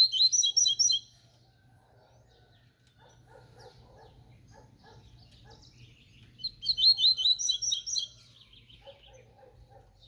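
A papa-capim (double-collared seedeater) singing its 'tui tui' song: a quick run of high, repeated chirping notes in the first second, then a second, slightly longer run about six seconds in.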